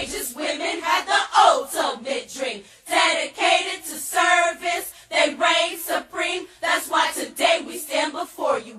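A group of women's voices singing together.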